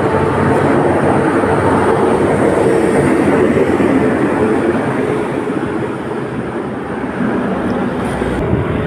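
Motorcycle riding at road speed: a steady engine drone under heavy wind rush on the microphone.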